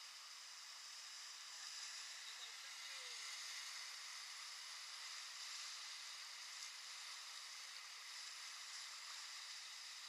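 Whitewater river rapids rushing past an inflatable raft: a faint, steady hiss of fast water with no low rumble.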